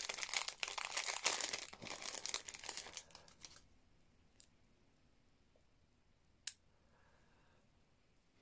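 Packaging crinkling and rustling as it is handled and unwrapped, stopping after about three and a half seconds, followed by two short faint clicks.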